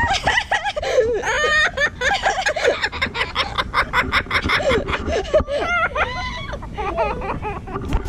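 A green macaw and a white cockatoo squawking and chattering with rapid, wavering, laugh-like calls as they tussle on the ground.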